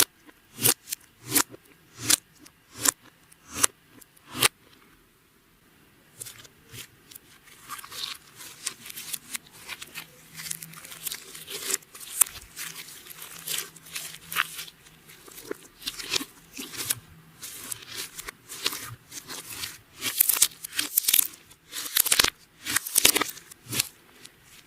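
Clear slime being worked by hand, making sharp wet pops and crackles as air pockets burst. First come evenly spaced single pops about every 0.7 s, then after a short pause a dense, irregular crackling run.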